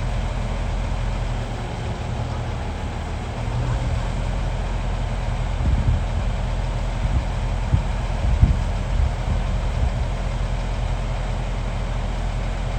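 Hyundai 390LC-9 excavator's diesel engine running steadily, with a few short knocks about six to nine seconds in.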